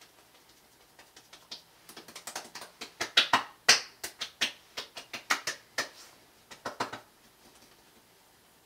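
Hands patting and slapping the face and neck to work in aftershave oil: a quick, irregular run of light slaps on skin, loudest about three to four seconds in, stopping about seven seconds in.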